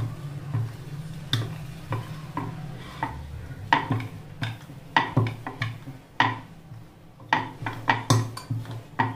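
Wooden rolling pin rolling out a thin round of nimki dough on a wooden board: a low rumble of the pin rolling, broken by irregular wooden knocks and clacks, about a dozen in all.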